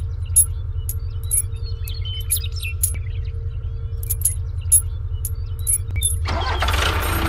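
Small metal chain clinking and jingling in short, light clicks as it is handled and hooked between two toy tractors, over a steady low rumble. A louder rushing noise comes in near the end.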